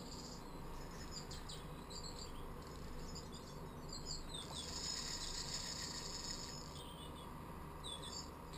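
Small birds chirping in short, high, repeated calls, with one longer high trill of about two seconds in the middle, over a low steady background hiss.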